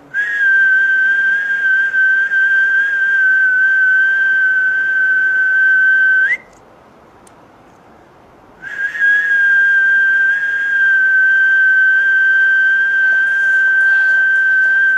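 Whistling: two long, steady notes at one high pitch, each held about six seconds, with a pause of about two seconds between them. This is a held tone used as sound healing.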